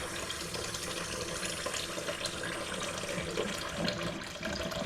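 Water running steadily from a Moen single-handle faucet into the sink, turned on to test it after a 1224B cartridge replacement.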